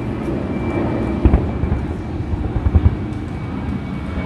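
Distant fireworks display: a steady low rumble of overlapping booms, with a sharper thump about a second in and a quick run of several more near the middle.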